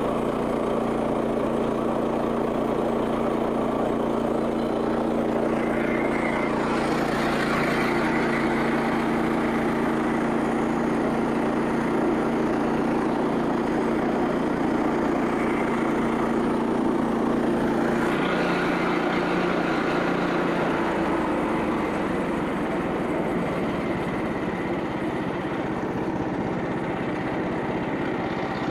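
Portable bandsaw mill's small gasoline engine running steadily under load while the band blade cuts through a log at a slow feed. The engine note shifts to a lower pitch about 18 seconds in.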